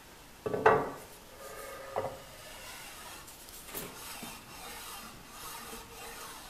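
Cast iron surface grinder table set down on a milling machine table and shoved into place, metal knocking and scraping on metal. A loud clunk comes about half a second in, a softer knock about two seconds in, and a click near four seconds, with light rubbing and sliding between them.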